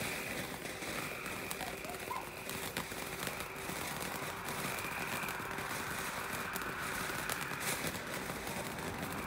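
Ground fountain firework spraying sparks: a steady hiss with faint scattered crackles.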